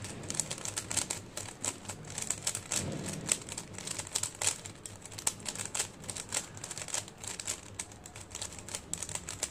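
Rubik's cube being scrambled by hand: rapid, irregular clicking and clacking of its plastic layers turning.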